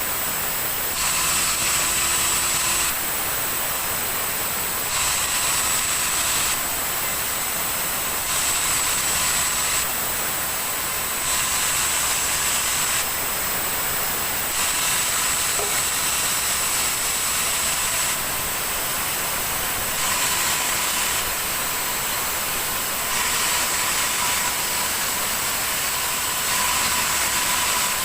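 Sawmill saw running through a log of yellow terap wood: a steady, high hiss with a faint high whine, swelling and easing a little every couple of seconds.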